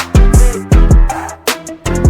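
Background music with a steady beat: a deep kick drum about twice a second, sharp snare hits and sustained instrument notes.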